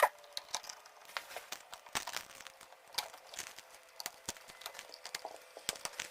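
Faint, irregular clicks and taps of copper wires and a 15-amp electrical outlet being handled, as the stripped wires are pushed into the outlet's push-in holes.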